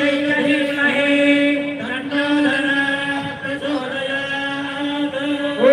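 Male voices chanting a devotional bhajan over a steady held drone note.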